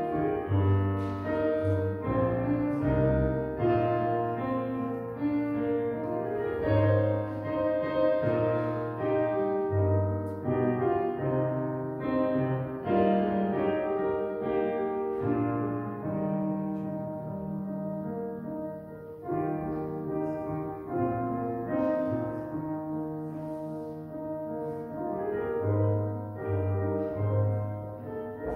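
Church organ playing slow, sustained chords over held bass notes: instrumental music during communion.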